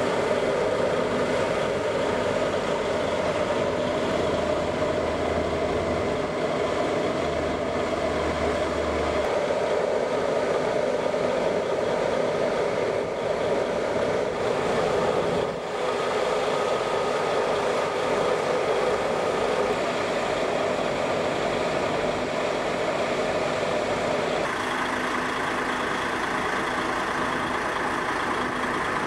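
Steady engine and road noise of a moving coach, heard from inside the cabin. Its tone shifts about 25 seconds in.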